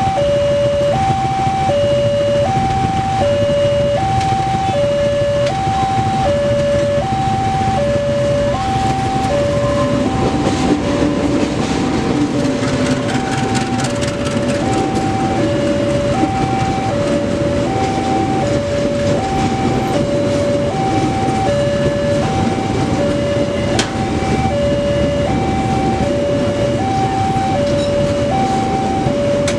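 A level-crossing warning alarm sounds a two-tone electronic signal, alternating high and low at about one tone every three quarters of a second. From about ten seconds in a passenger train rolls past over it, with the rumble of wheels on rails and clicks at the rail joints.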